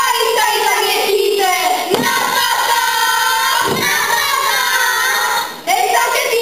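A group of children singing a folk song together, breaking off briefly near the end and starting again.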